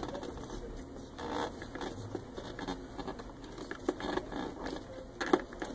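Plastic hose fitting being worked by hand into the plastic tank of a Rug Doctor Mighty Pro X3 carpet cleaner: scattered rubbing and small clicks, with one sharper click near the end.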